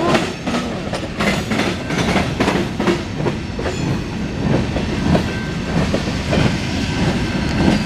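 Covered steel coil cars of a CSX mixed freight train rolling past at close range, with a steady noise and many short clacks of the wheels on the rails.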